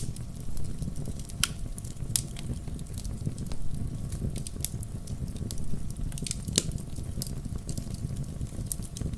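Wood campfire crackling: irregular sharp pops and snaps, a few each second, over the low steady rumble of the burning fire.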